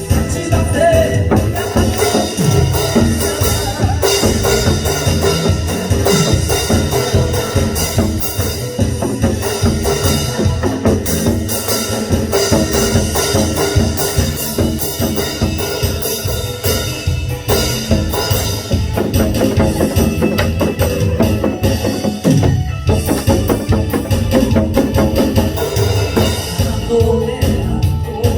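Loud music with a steady, driving drum-kit beat.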